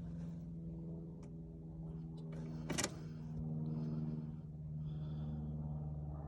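Starter motor of a Ford S-Max 1.8 TDCi diesel cranking steadily as a hum, with a sharp click about halfway through. The engine does not fire.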